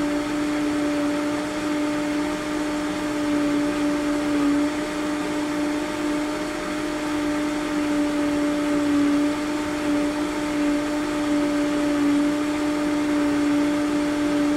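Countertop blender running steadily at high speed, its motor giving an even hum of unchanging pitch as it purees a sauce of rolled oats and water.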